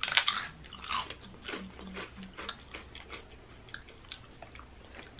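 Two people biting into crisp, wheel-shaped fried flour chips: a few loud crunches in the first second, then continuous crunchy chewing with small irregular crackles.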